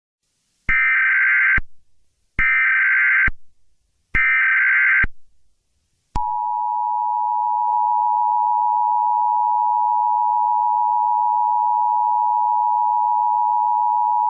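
Emergency Alert System tones: three bursts of the SAME digital header, each just under a second of warbling data noise, about a second apart. About six seconds in, the steady two-tone EAS attention signal (853 and 960 Hz together) begins and holds.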